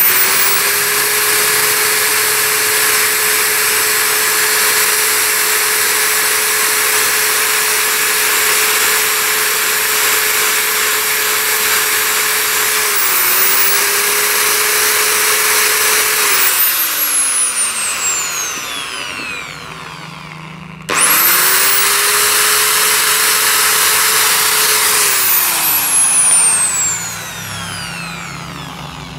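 Hand-held rotary grinder with an abrasive bit grinding carbon deposits out of the port of a Suzuki Smash 110 cylinder head: it runs at a steady high whine with a grinding hiss, dipping briefly about halfway through. It is switched off and winds down, then runs again for about four seconds and winds down once more near the end.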